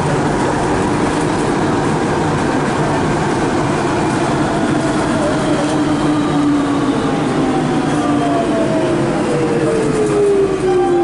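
Interior running noise of a Siemens VAL 208 rubber-tyred automated metro train in a tunnel. From about six seconds in, the traction motors' whine falls steadily in pitch as the train slows into a station.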